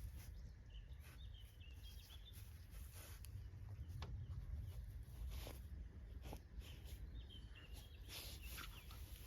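Quiet outdoor ambience: a low rumble of wind on the microphone, a small bird twittering briefly about a second in and again near the end, and a few scattered soft clicks and rustles.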